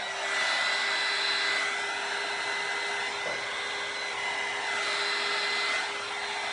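Electric heat gun running: a steady fan whine over the rush of blown air, used to pop the air bubbles in the freshly poured acrylic paint.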